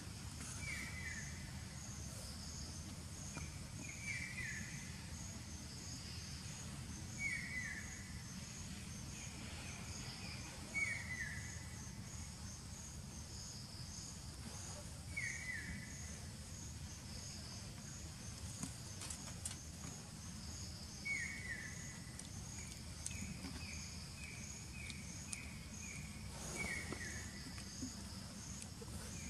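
Outdoor ambience: an insect chirping in a steady pulsing rhythm, with a bird repeating a short falling call every three to four seconds and a quicker run of short notes near the end, over a low steady rumble.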